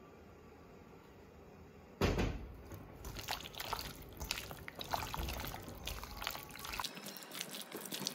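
A hand squishing and mixing oil-coated, marinated chicken pieces in a steel bowl: wet squelching with irregular clicks and knocks, starting suddenly about two seconds in.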